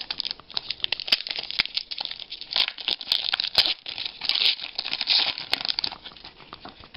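Foil trading-card pack wrapper being crinkled and torn open, with small clicks of the cards being handled; the crinkling dies down about six seconds in.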